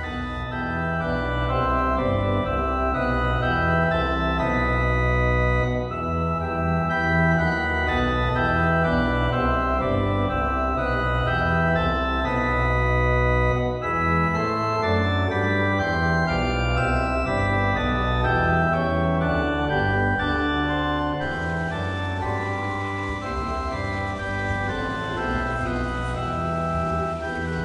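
Organ music playing sustained chords over a slowly moving bass line.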